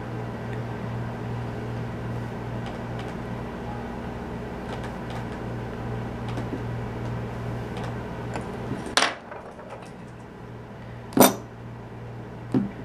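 Small metal hand tools handled on a wooden tabletop: faint scraping and ticks over a steady low hum, then two sharp clacks about nine and eleven seconds in, and a smaller knock near the end.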